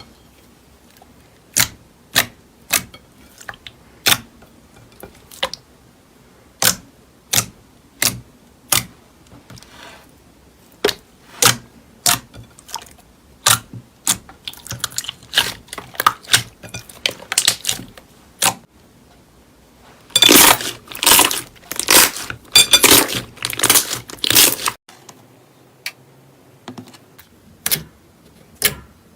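Slime being squeezed and poked, giving sharp, separate clicks and pops about once or twice a second. About two-thirds of the way in, a denser, louder run of crackling and crunching lasts about five seconds.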